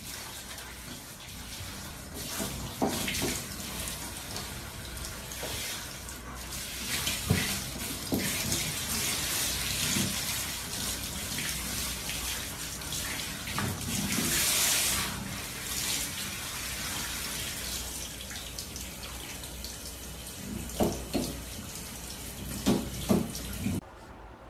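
Handheld shower head spraying water onto a dog's coat and the shower floor: a steady hiss, with a few soft knocks and thumps. The water cuts off abruptly near the end.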